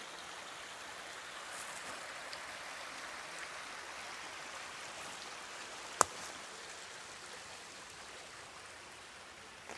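Steady rush of a woodland stream running over rocks, with a single sharp click about six seconds in.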